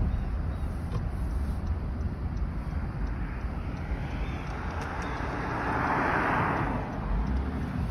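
Road and wind noise from a car moving slowly with its window open, with a steady low rumble of wind on the microphone. A rushing hiss swells and fades between about four and seven seconds in.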